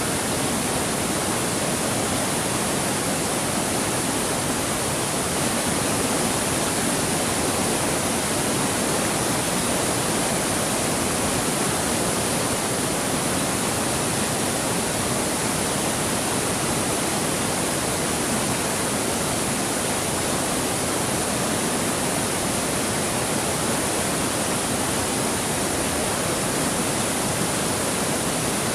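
Waterfall in full rainy-season flow, the falling water making a steady, unbroken rush.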